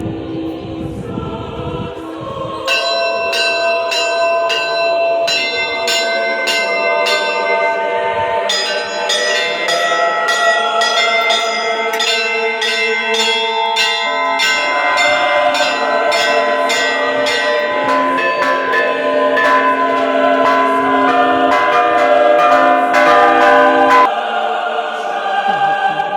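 Orthodox church bells rung from the belfry: a rapid pattern of clapper strikes on several bells of different pitch. The strikes start slowly, about two a second, then grow denser, so that the ringing overlaps. The strikes stop a couple of seconds before the end.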